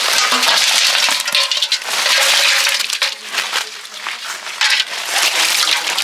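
Water and live fish pouring out of a wet cloth sack into an aluminium basin: splashing, with fish slapping and clattering against the metal. It is loudest in two long pours in the first three seconds, then comes in shorter bursts.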